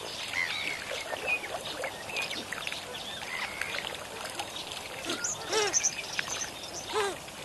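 Many birds calling over one another in a continuous chorus of short, bending calls. A few louder calls stand out about five and a half and seven seconds in.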